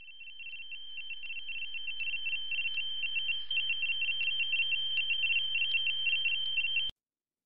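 A high-pitched electronic tone warbling rapidly on and off, like a telephone ring, with faint regular ticks under it. It fades in and cuts off suddenly about seven seconds in.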